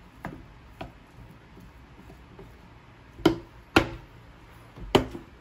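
A rice paddle tapping lightly twice on a wooden plate, then three sharp plastic snaps, half a second to a second apart, as the locking tabs of a glass food container's lid are unclipped.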